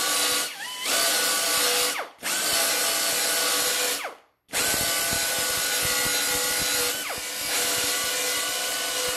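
Small finger belt sander with a 60-grit belt grinding the tops off weld beads on a steel wheel-arch patch, running with a steady hiss and whine. It dips briefly about half a second and two seconds in, and stops for a moment about four seconds in before running on.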